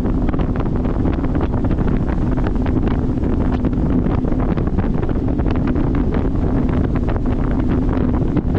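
Wind buffeting the microphone of a fishing boat running across open water, over a steady low drone from the boat's engine, with frequent short irregular thumps.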